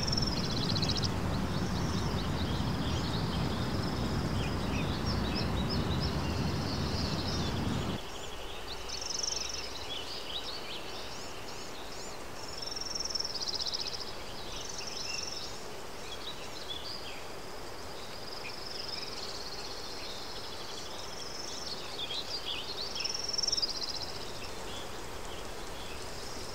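Birds chirping and calling in short, repeated notes over a low, steady rumble of outdoor noise, which drops away abruptly about eight seconds in.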